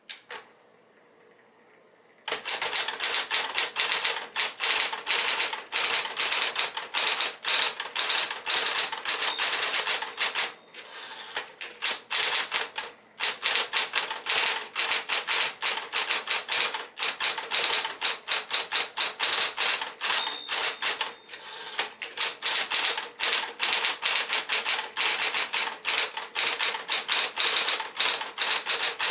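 1973 Smith-Corona Electra 120 electric typewriter being typed on: rapid keystroke clacks starting about two seconds in, with a couple of short pauses. A brief high ringing tone sounds three times among the keystrokes.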